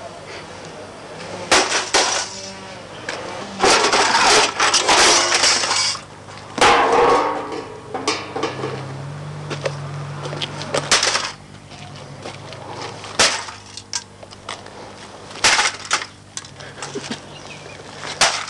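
Sledgehammer blows smashing a desktop PC's sheet-metal case on concrete: repeated heavy impacts at irregular intervals, with metal crunching and loose parts clattering and tinkling. The longest crash comes about four to six seconds in.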